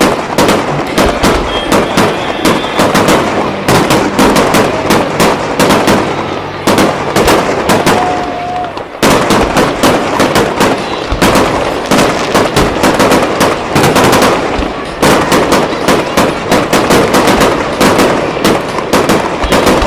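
Fireworks show in rapid-fire barrages: dozens of sharp bangs and cracks in quick succession, coming in three surges with short lulls about seven and fifteen seconds in.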